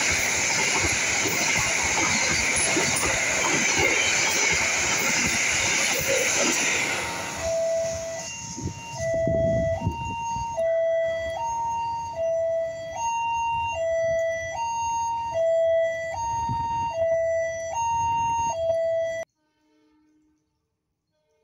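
Argo Bromo Anggrek passenger train's cars rushing past at close range, a loud steady roar that ends about seven seconds in. Then a railway level-crossing warning alarm sounds, alternating between a low and a high tone about every three-quarters of a second, and cuts off abruptly near the end.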